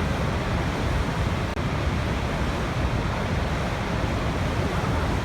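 Waterfall: an unbroken rush of falling water, heaviest in the low end.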